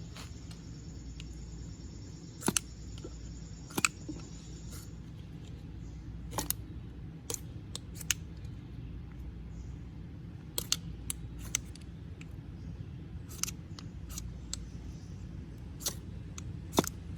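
Sharp, irregular snaps and cracks of wood, about fifteen separate snaps at uneven gaps over a steady low background rumble.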